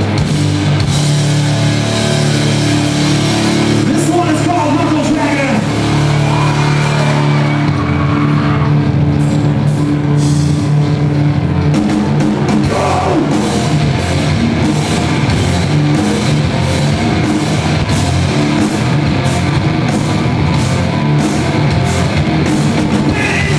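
A live punk rock band playing electric guitars, bass and drums loudly, with vocals in places; the drums strike in a steady beat through the second half.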